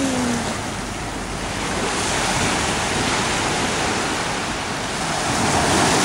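Small ocean waves breaking and washing up over a sandy beach shoreline, a steady surf wash that swells louder near the end.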